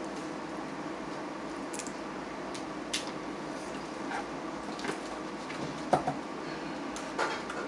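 Boiled blue crab shells being cracked and picked apart by hand: a few sharp cracks and clicks, the loudest about six seconds in, over a steady room hum.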